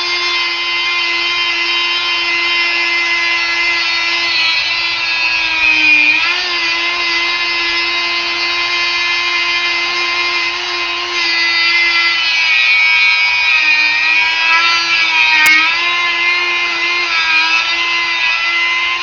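Rotary tool running with a steady high whine as it cuts through a wheel stud on the wheel hub. Its pitch dips briefly about six seconds in and again about three-quarters of the way through as the tool is loaded down in the cut.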